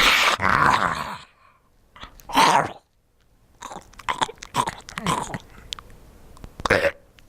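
A person imitating an animal or monster with their mouth: breathy growls and snarls in several short bursts with pauses between, the loudest about two and a half seconds in.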